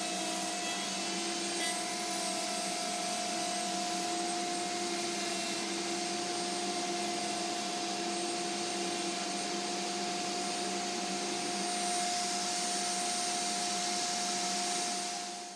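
Electric router running steadily with a constant whine as it cuts a circle into a round wooden board, cutting out a ring. The sound fades out at the very end as the cut is finished.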